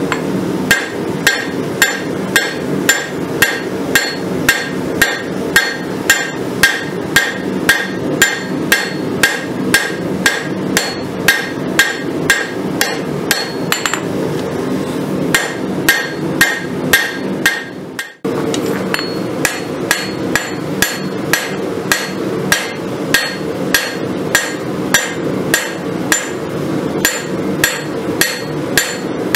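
Hand hammer striking a red-hot farrier's rasp on an anvil as the blade is forged. The blows come about two a second, each with a short metallic ring, over a steady rushing noise, with a brief break about 18 seconds in.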